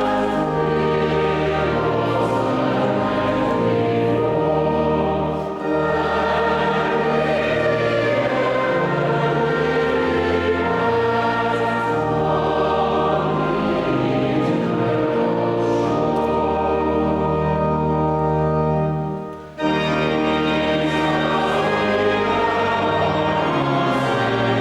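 Choir singing with organ accompaniment in sustained chords. The music breaks off for a moment about 19 seconds in, then resumes.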